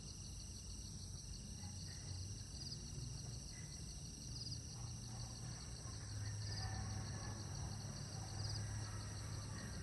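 Faint nature ambience: insects trilling steadily in several high tones, with a short chirp repeated about every two seconds, over a low steady rumble.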